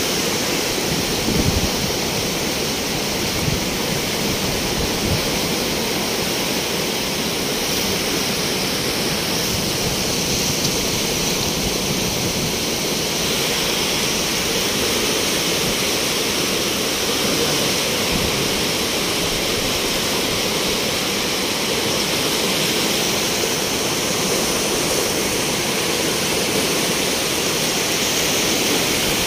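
Muddy floodwater rushing and churning in a swollen river, a loud, steady noise of fast-moving water.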